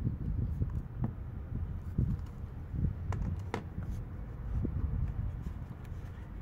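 Handling noise from a hard plastic tool case: a low rumble with light knocks, and two sharp plastic clicks about three seconds in as the case is worked open.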